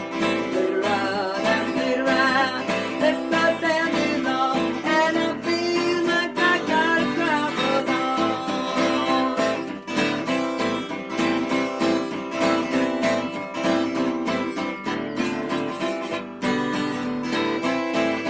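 Cutaway steel-string acoustic guitar strummed steadily, playing an instrumental break between verses of an old-time country song.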